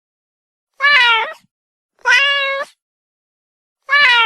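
Domestic cat meowing three times, each meow about half a second long.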